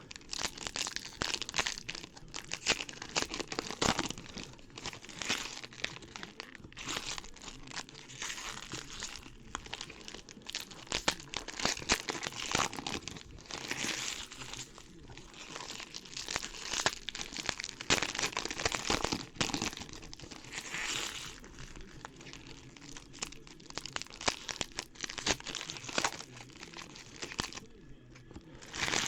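Irregular crinkling and tearing of trading-card pack wrappers and packaging, with scattered rustles and clicks as the cards are handled.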